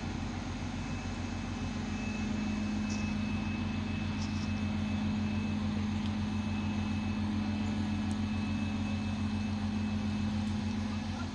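Crane's diesel engine running steadily under load as it hoists a narrowboat clear of the water, its note growing a little louder about two seconds in, with a thin high whine coming in at the same time.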